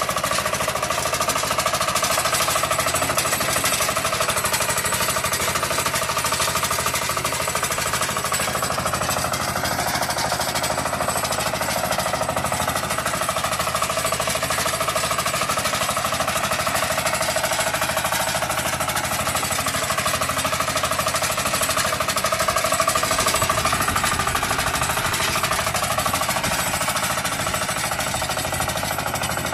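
Walk-behind two-wheel tractor engine running steadily with a fast, even chugging, working under load as it pulls a plough through the soil.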